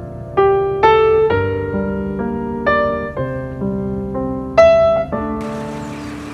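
Background piano music: a slow melody of single struck notes, about two a second, over held lower notes.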